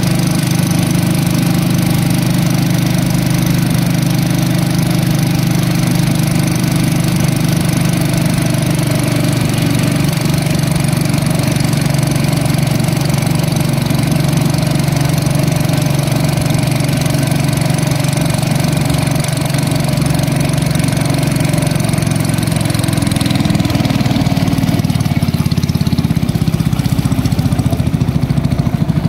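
Engine of a small wooden river motorboat running steadily, heard from aboard. About 23 seconds in its note changes and eases off as the boat slows toward the bank.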